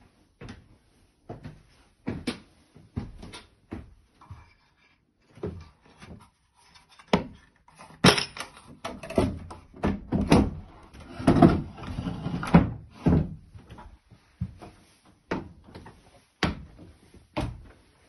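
Irregular knocks and thumps, a few a second, busiest and loudest in the middle.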